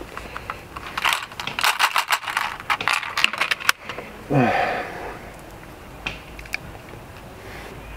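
Plastic weekly pill organizer being handled: its compartment lids click open and pills rattle inside and are shaken out into a hand, a dense run of clicks and rattles for a few seconds. A short voice sound falling in pitch follows about halfway through, then two single clicks.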